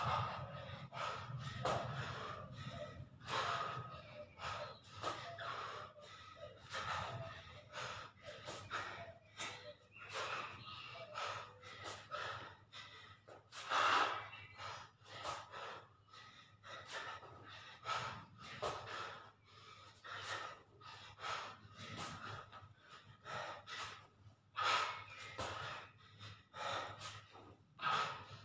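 A man breathing hard in quick, sharp huffs and gasps, about one or two a second, from the exertion of push-up and burpee reps on dumbbells.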